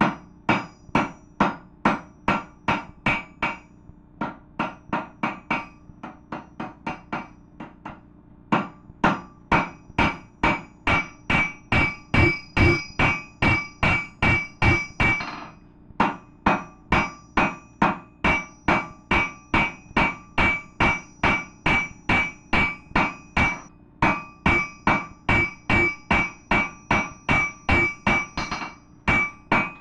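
Blacksmith's hand hammer forging a glowing steel bar on an anvil: a steady run of about three blows a second, each with a bright metallic ring. The blows go softer for a few seconds early on and pause briefly a few times.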